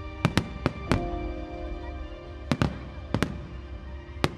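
Fireworks shells bursting with sharp cracks, about nine in all and mostly in quick pairs, over sustained music.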